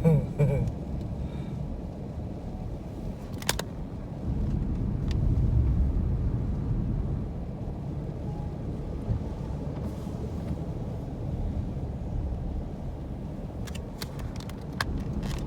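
Car running with a steady low rumble heard from inside the cabin, swelling briefly, with a few short clicks.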